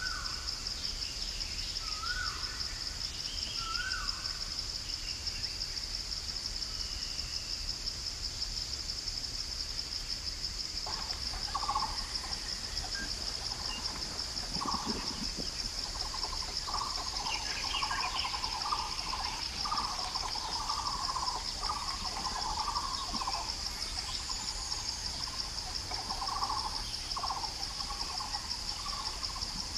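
Barbet calling a long series of hollow, evenly repeated hooting notes, beginning about a third of the way in. Insects keep up a steady high pulsing buzz, and near the start a bird gives three short rising calls.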